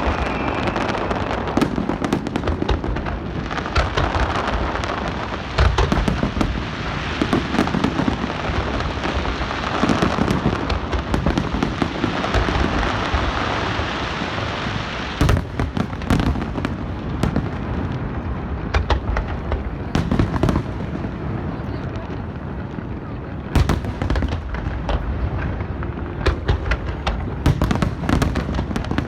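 Large aerial fireworks display: shells bursting in rapid succession, a dense run of bangs and crackling, with a few sharper, louder booms along the way.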